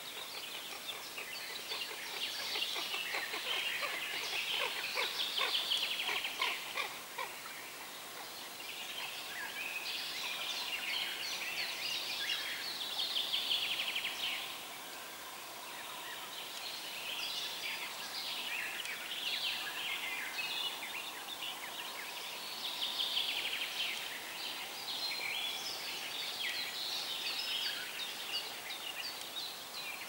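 Songbirds singing in long phrases of fast, repeated high notes, several seconds each with short pauses between, over a faint steady hiss of river water.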